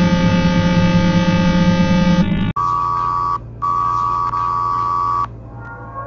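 Synthesized emergency alert (EAS) alarm sounds: a harsh buzzing chord over a low drone cuts off abruptly about two and a half seconds in, followed by two long steady beeps of a single tone with a short gap between them.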